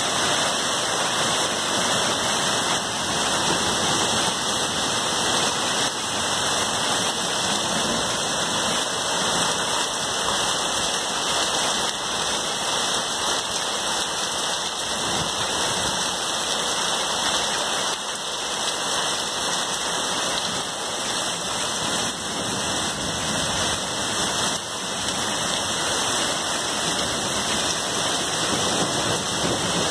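Heavy downpour of rain mixed with dime-size hail, a steady dense hiss of drops and hailstones falling without a break.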